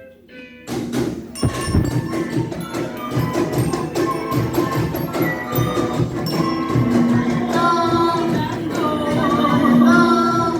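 Upbeat music with a steady percussion beat that starts about a second in.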